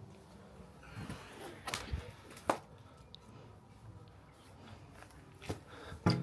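Knocks, scuffs and rustling of a person clambering through a narrow gap, with a sharp knock about two and a half seconds in and a brief voice sound at the end.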